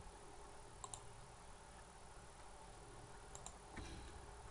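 A few faint, sharp computer mouse clicks, spaced irregularly, over quiet room hiss.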